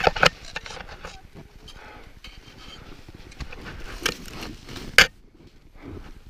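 Crunching snow and several sharp knocks as an ice axe is driven into the snow lip of a crevasse, with loose snow showering onto the head-mounted camera. The loudest knock comes about five seconds in.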